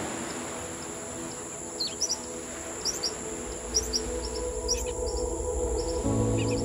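Birds chirping in short, repeated high calls over soft ambient music, with a deep bass note coming in near the end.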